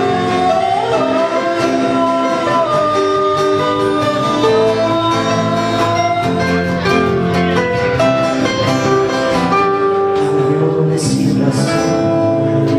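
Live acoustic band: a man singing into a microphone over several acoustic guitars strummed and picked together.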